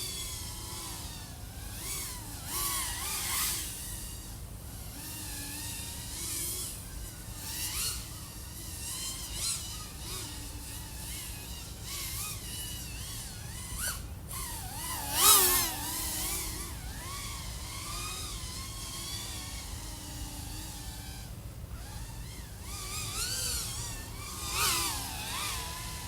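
Brushless motors and propellers of an iFlight AOS 3.5 V5 FPV quadcopter whining, the pitch rising and falling with throttle, mixed with rushes of air noise. The loudest burst of throttle comes about fifteen seconds in.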